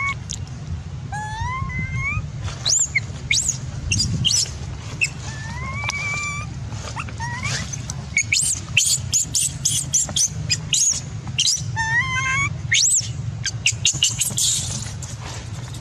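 Baby macaque whimpering in distress, a series of rising, whining coo calls each about a second long, with quick high squeaks crowding in during the second half. These are the cries of a hungry infant refused nursing.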